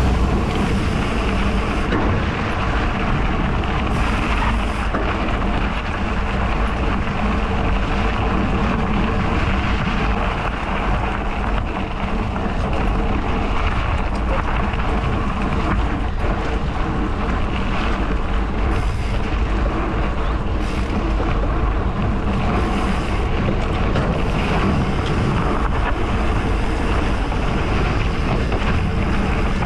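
Steady wind rushing over the microphone of a camera on a moving bicycle, with a strong low rumble underneath.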